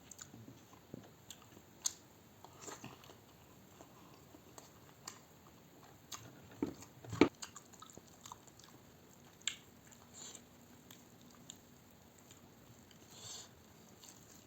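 A person chewing and biting food close to the microphone, with quiet, irregular mouth clicks, smacks and small crunches.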